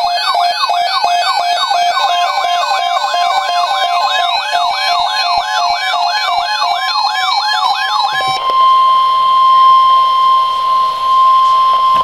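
Weather alert radio's electronic siren alarm: a fast falling warble repeating about three times a second, over the steady NOAA Weather Radio 1050 Hz warning tone. The warble stops about eight seconds in, leaving the steady tone alone, which signals an alert broadcast about to be read.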